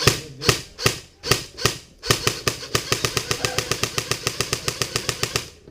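Airsoft gun firing: about six single shots in the first two seconds, then a sustained full-auto burst of roughly ten shots a second that stops just before the end.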